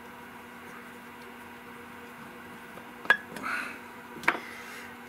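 Two sharp clicks of small metal carburetor parts being handled and set down, one about three seconds in and one a little over four seconds in, over a steady low hum.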